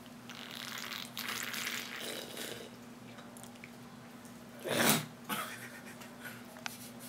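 Someone sipping a fizzy drink from a can, with soft slurping and breathing. About five seconds in comes one short, loud breathy burst, the loudest sound here.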